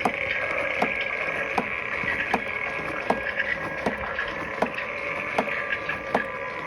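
Motor mechanism of a two-faced Grim Reaper animatronic running, a steady whir broken by a sharp click repeating evenly about every three-quarters of a second.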